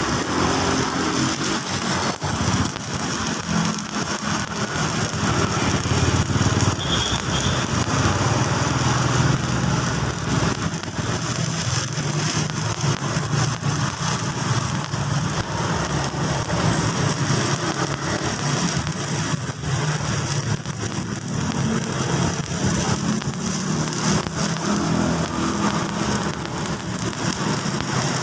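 Stick (SMAW) welding arc from an inverter welder, crackling and sizzling steadily as the rod burns, over a low drone.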